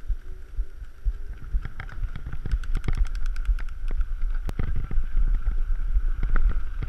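Scott Gambler 720 downhill mountain bike rolling over cobblestone paving: a steady low rumble with the bike's chain and parts rattling in many sharp clicks that start about a second and a half in, plus wind buffeting the helmet-mounted microphone.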